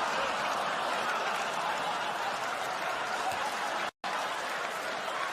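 Comedy club audience laughing and applauding, with the sound cutting out for a split second about four seconds in.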